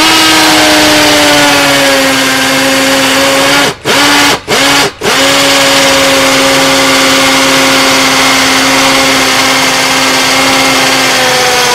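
Cordless hammer drill on its concrete setting, drilling into a concrete block: a loud, steady motor whine whose pitch sags slightly as the bit bites in. The trigger is let off and squeezed again three times in quick succession, about four to five seconds in.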